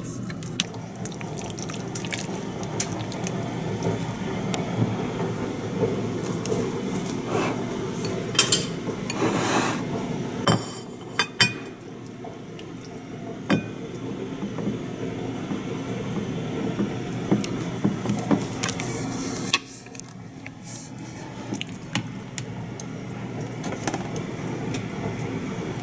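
Wooden chopsticks clicking and scraping against ceramic bowls while marinated raw chicken pieces are stirred and then dredged in a bowl of coating powder, with soft wet squishing of the meat. A steady low hum runs underneath.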